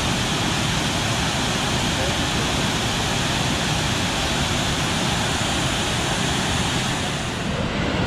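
Large waterfall pouring steadily, a dense, even rush of falling water. The sound turns a little duller near the end.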